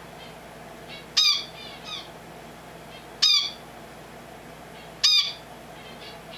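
Finch calling: three loud, short calls about two seconds apart, with softer calls in between.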